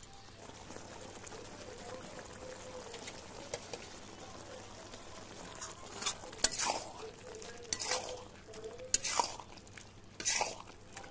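Metal spatula stirring and scraping thick goat-intestine curry frying in a metal kadhai, over a steady sizzle. Louder scrapes against the pan come in a run through the second half.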